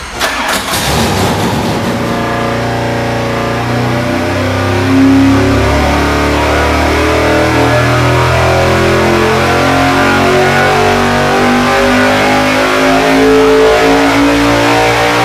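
V8 engine fitted with 1.6-ratio roller rocker arms, pulled at full throttle against a SuperFlow engine dyno. Its pitch rises steadily under load as it sweeps from about 3,500 to about 6,500 rpm.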